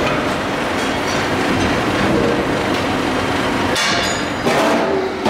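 Machinery running loudly and steadily, a dense mechanical noise with a few faint held tones and a brief change in the sound about four seconds in.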